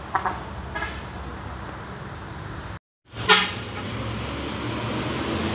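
Bus horn: two short toots, then after a brief break in the sound a louder, longer blast about three seconds in. Under it the engine of an approaching Mercedes-Benz OH 1626 coach rumbles, growing louder as it nears.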